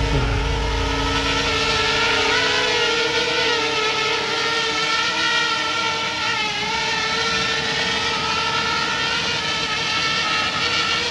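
DJI Mavic Air 2 quadcopter drone hovering close by, its propellers giving a steady multi-tone whine that wavers slightly in pitch as the pilot makes small adjustments while trying to land it.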